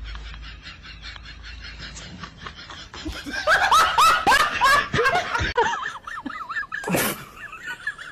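A baby macaque squealing: after about three quiet seconds comes a rapid run of short, high cries, each falling in pitch, lasting about three seconds. One sharper, louder cry follows near the end.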